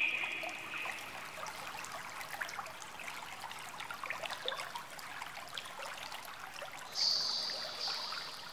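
Water trickling and dripping, a fine, even patter of many small drips. A high, drawn-out call is heard in the first second, and a higher one from about seven seconds in.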